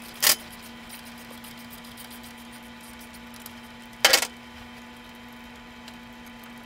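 Metal hand-tool sounds while the Allen bolts of a motorcycle's foot peg mount are spun out with a socket Allen wrench: a sharp click about a third of a second in, faint light ticking over the next few seconds, and a short metallic clunk about four seconds in, over a faint steady hum.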